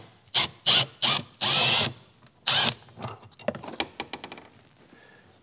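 Cordless drill/driver backing out the single screw that holds an aluminum engine heat shield, run in about six short trigger pulls with one longer run about a second and a half in. A run of light clicks follows about three seconds in.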